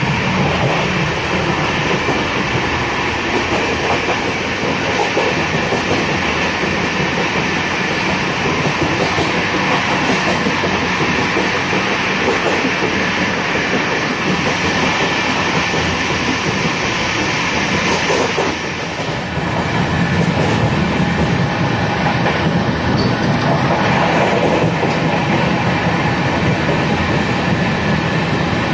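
Rajdhani Express train with Tejas coaches running at speed: a steady, continuous noise of wheels on rail, dipping briefly in level about two-thirds of the way in.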